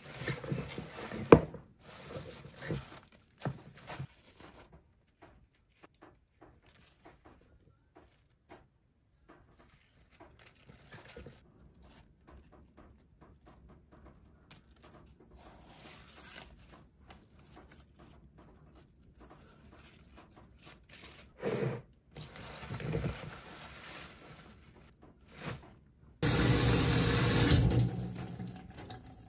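Rustling and small snaps as butterbur leaves are handled and their stems are snapped and peeled by hand, with a sharp knock about a second in. Near the end, tap water pours for a second or two into a stainless steel tray of soaking leaves.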